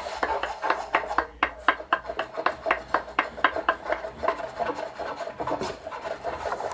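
A hand tool scraping or rasping wood in quick, even strokes, about five a second, with a short pause about a second and a half in.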